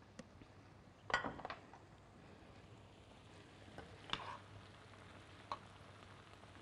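A spoon scraping and knocking against a pan a handful of times while scooping cooked chicken filling, the loudest cluster about a second in, over a faint steady low hum.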